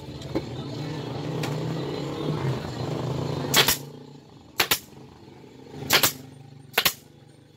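Pneumatic upholstery staple gun firing about six times into vinyl fabric stretched over a plywood seat board, as sharp cracks, some in quick pairs, from about three and a half seconds in. Before the shots there is a steady low hum that stops a little before the first shot.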